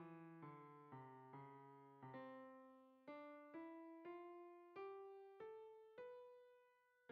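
Faint background music: a keyboard melody of single piano-like notes, about two a second, each struck and then dying away, with the last note held and fading near the end.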